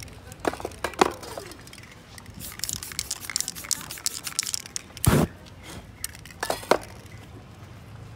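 Aerosol spray-paint cans hissing in short bursts and clinking as they are handled, then a sudden whoosh about five seconds in as the paint spray is set alight and flames spread over the wet paint.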